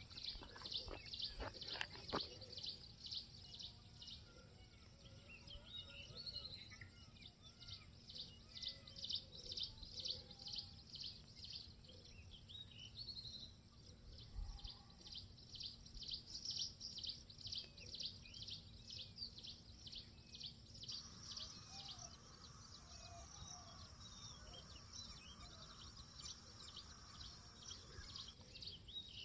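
Forest ambience with birds calling: a fast run of high repeated chirps, several a second, goes on through most of it, with scattered lower chirps between. A few sharp clicks come in the first two seconds.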